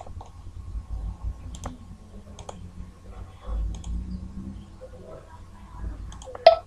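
Computer mouse clicking, single clicks spaced about a second apart, the loudest one near the end.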